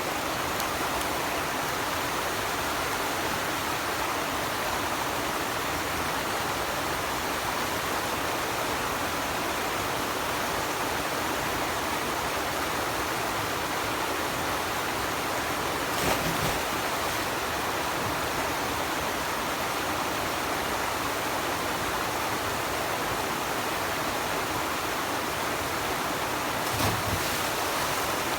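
Mountain stream water rushing steadily, with two brief louder sounds about 16 and 27 seconds in.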